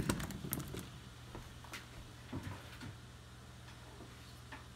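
Baby potatoes tipped from a plastic colander into a pot of broth: a burst of plops and knocks at the start, then a few scattered knocks over the next three seconds, leaving a low steady hum.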